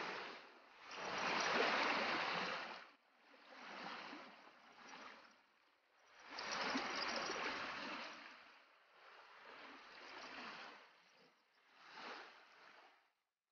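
Small waves washing against a muddy lakeshore, coming in uneven surges of one to two seconds that swell and fade, with short dead gaps between them.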